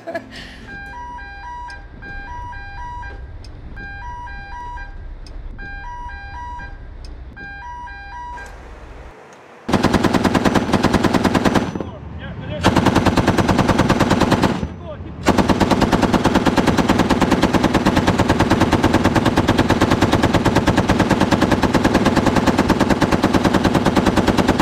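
An electronic alarm sounds in repeated short groups of two alternating tones. About ten seconds in, a deck-mounted 7.62 mm general purpose machine gun opens up with very loud rapid automatic fire in long bursts, with two short breaks.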